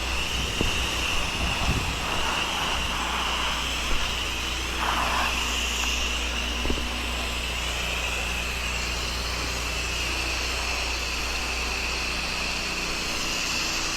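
Pressure washer engines running steadily, with the hiss of the spray wand applying soft-wash mix through a 1.8 downstream injector. A couple of light clicks come through it.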